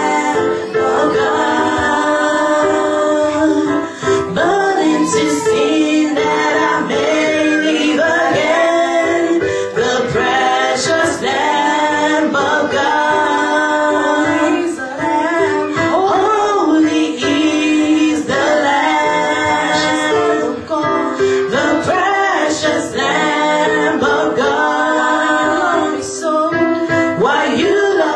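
Gospel praise and worship singing, a woman's voice to the fore with other voices, in sung phrases over steady held accompaniment.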